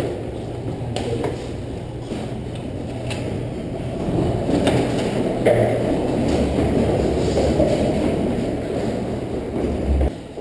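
Tornado winds making a steady low roar, like a passing train, that builds about four seconds in, with a few faint knocks.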